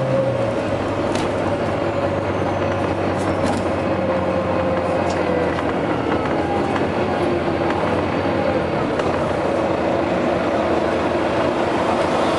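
Volvo B9TL double-decker bus's diesel engine running steadily under way, with a steady whine over the engine noise and a few brief clicks in the first few seconds.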